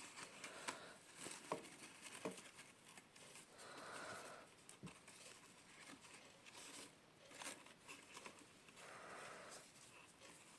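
Near silence with faint rustling and a few light clicks: ribbon and cardstock being handled while a small bow is tied.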